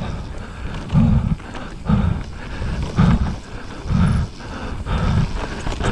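A racing mountain-biker breathing hard and rhythmically from exertion, about one puff a second blowing on the microphone, over the steady rush of tyres on the trail.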